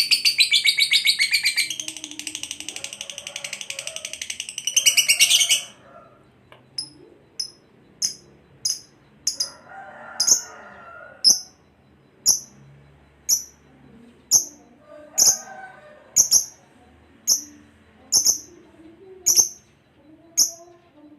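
Lovebird singing a loud, dense, rapid trill (the long 'ngekek' song) that stops about five seconds in. Sharp high single chirps then follow about once a second, with fainter lower chattering calls in between.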